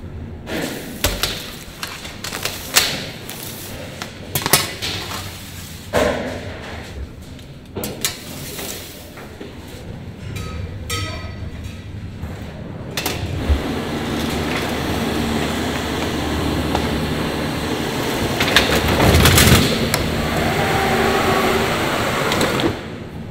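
Roll-cake factory work sounds: scattered knocks and clinks of hard objects for the first dozen seconds, then steady machinery noise with a low hum from about thirteen seconds in.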